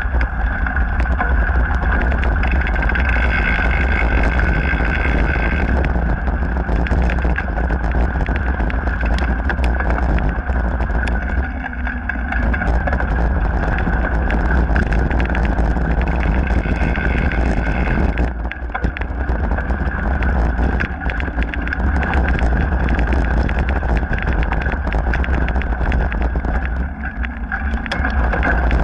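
Mountain bike rolling along a dirt and gravel trail: a steady rumble of tyres and riding noise with frequent small clicks and rattles over stones, briefly quieter a few times.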